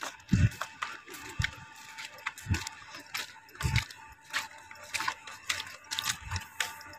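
Footsteps on a paved path with handling knocks from a hand-held phone camera: a dull knock about once a second, under many short sharp clicks.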